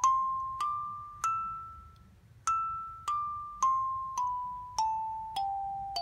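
Hluru 21-key whale kalimba, its metal tines plucked by the thumbs one note at a time, each note ringing out and fading. The notes climb to a high note, which is left to ring for about a second, then step down the scale one note about every half second.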